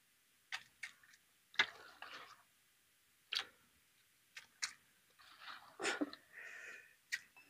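Raw chicken pieces being dropped by hand into a large pot of curry gravy: a scattering of faint, short splashes and clicks, about one every second or so, with brief soft rustling between some of them.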